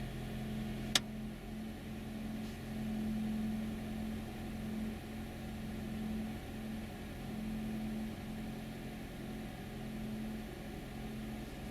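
Honda 2.0 petrol engine idling steadily just after a cold start, heard inside the closed cabin as a low, even hum, with the revs still held above 1000 by the cold fast idle. A single sharp click about a second in.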